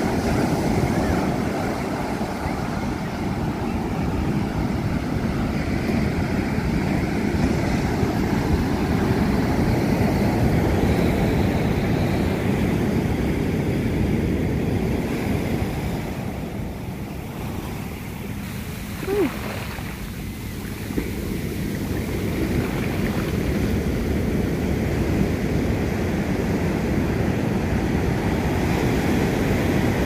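Ocean surf breaking and washing up the sand, a steady rush that swells and eases, with wind rumbling on the microphone. A short squeak cuts through about two-thirds of the way in.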